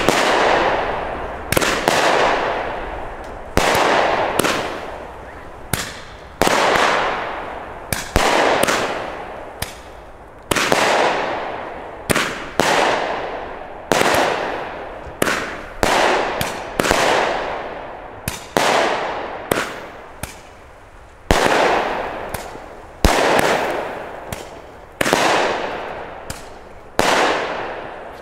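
Albert 'Tiger King' consumer firework battery firing shot after shot, about one every two seconds. Each shot is a sharp bang followed by a long fading crackle, and the last shot comes about a second before the end.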